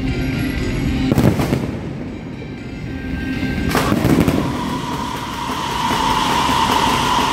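Aerial fireworks display: two loud bangs of bursting shells, about a second in and just before four seconds in, then a steady hiss as a volley of shells rises.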